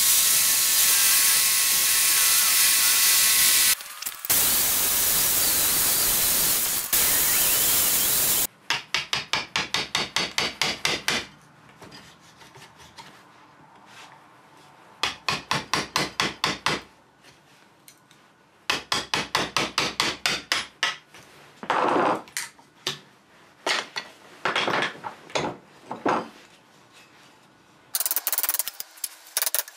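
Reciprocating saw cutting through seasoned cherry wood for about eight seconds, with a short break partway. Then a claw hammer strikes a chisel into the cherry wood held in a vise, in quick runs of about four blows a second with pauses between.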